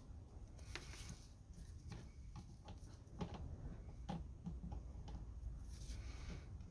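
Faint, irregular metallic clicks and taps of mole grips (locking pliers) being adjusted and clamped tight onto a seized steel stud.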